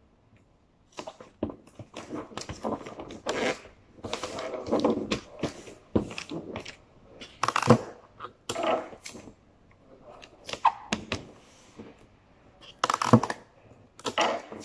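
Wrapping paper rustling and crinkling in irregular bursts as it is pulled and folded around a cardboard box.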